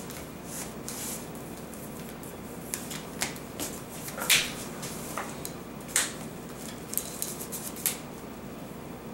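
Trading cards being handled on a table: scattered light clicks and slaps of cards being picked up, shuffled and laid down, two of them louder about four and six seconds in, over a steady room hum.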